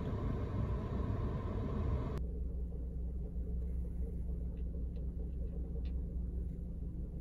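Car engine idling, heard inside the cabin as a steady low rumble. A brighter hiss over it cuts off about two seconds in, and a few faint light clicks come later.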